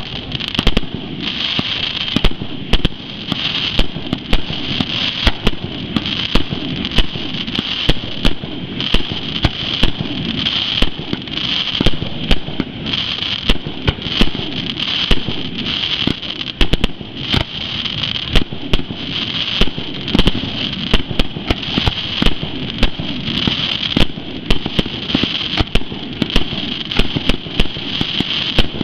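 Aerial fireworks shells bursting in rapid, irregular succession, several sharp bangs a second throughout.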